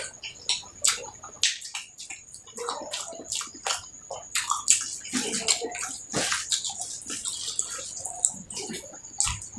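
Close-miked eating sounds: wet chewing, lip-smacking and mouth clicks, irregular and unbroken, while the eater works through a meal of fish curry, egg curry and rice. A faint, steady high whine sounds in the background at times.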